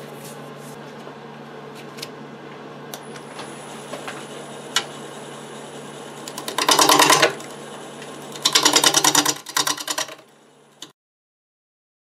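Wood lathe running with a steady motor hum while a gouge cuts the spinning wet black locust blank, with two loud spells of rapid clicking as the tool bites an uneven surface, about six and eight and a half seconds in. The sound cuts off suddenly near the end.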